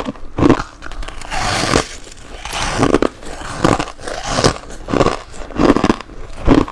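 Close-miked biting and chewing of freezer frost ice: a run of about eight or nine crunches, one or two a second, with one longer grinding crunch near the two-second mark.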